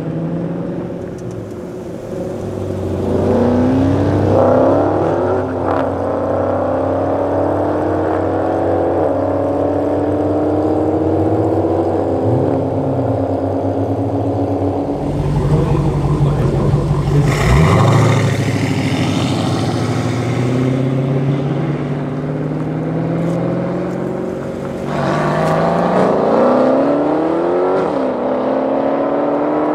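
Dodge Challenger SRT Hellcat's supercharged 6.2-litre V8 at full throttle, accelerating hard through the gears. The engine note climbs in pitch again and again and drops back at each upshift. A louder spell comes in the middle, and a fresh hard run starts about 25 seconds in.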